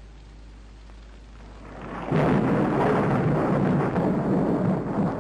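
Thunder, a storm sound effect: a rumble builds about two seconds in and breaks into a loud, sustained roll.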